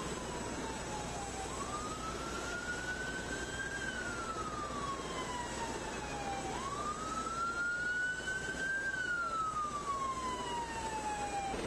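Emergency vehicle siren in a slow wail, rising over about two seconds and falling over about three, going through about two cycles over a steady noisy background.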